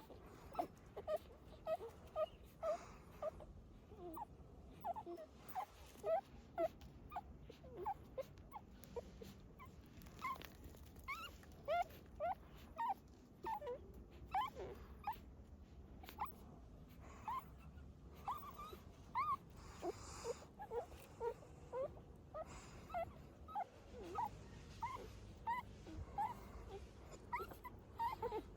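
Newborn puppies, eyes not yet open, whimpering and squeaking: short high cries, one after another, all the way through.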